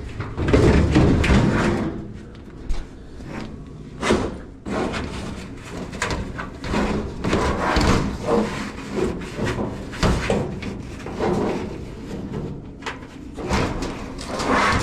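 Sheet-metal clunks and scraping as a Kenmore dryer's drum is handled and pulled out of the cabinet: a heavy scraping rumble at the start, then several sharp knocks and rattles.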